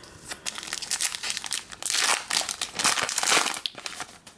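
Foil trading-card pack wrapper crinkling as it is opened and the cards are pulled out: a dense run of crackles, loudest in the middle, that stops shortly before the end.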